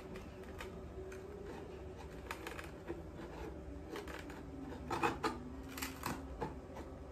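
Claw hammer prying and knocking at a nailed wooden box: scattered small clicks, scrapes and creaks of wood, with a few louder knocks about five and six seconds in.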